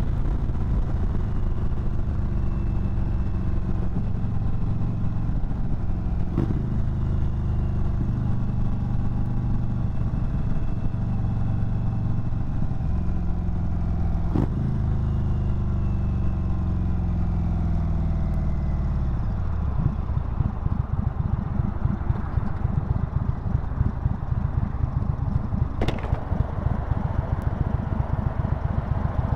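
2022 Indian Chief Bobber Dark Horse's Thunderstroke 116 V-twin on its stock exhaust, running steadily at road speed. Its pitch falls as the bike slows, and in the last third it lopes along at low revs in an uneven pulse, with a few brief clicks.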